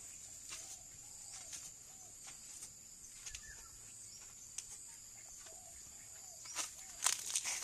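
Outdoor ambience with a steady high-pitched insect drone, like crickets. Faint short bird calls come and go. Scattered light rustles and clicks run throughout, and a louder quick run of rustling clicks comes near the end.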